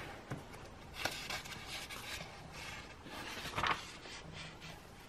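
Paper rustling and rubbing as a magazine page is turned and handled, with short rustles about a second in and again about three and a half seconds in.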